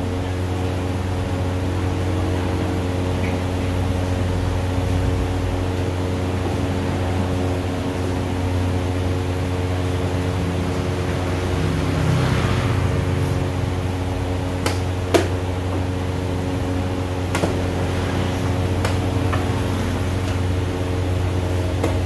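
Steady mechanical hum, like a fan or cooling appliance, with a few sharp clicks in the second half from chess pieces being set down and a chess clock being pressed.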